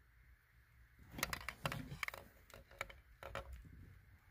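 Scattered small clicks and rustles of hands handling thin wires and plastic butt connectors, starting about a second in.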